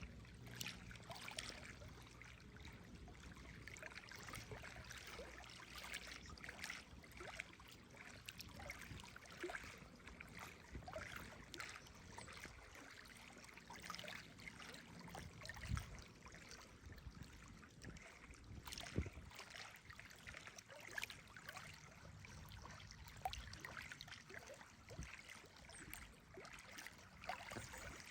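Faint small waves lapping at the water's edge, an irregular patter of little splashes and gurgles.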